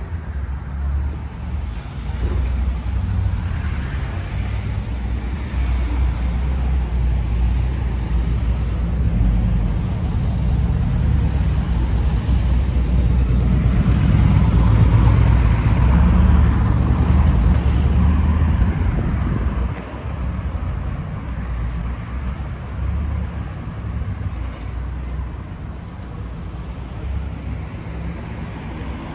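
Road traffic on a town street: a vehicle running past with a steady low rumble and tyre noise. It swells to its loudest in the middle and falls away sharply about two-thirds of the way through.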